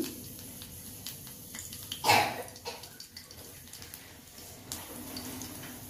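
Cumin seeds and garlic frying in hot oil in a kadai: a steady sizzle with many small crackles and pops, and one loud, short spit of sizzle about two seconds in.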